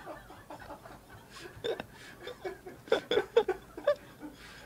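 A man's quiet, stifled laughter: short broken chuckles and snickers, clustering about one and a half seconds in and again past the middle.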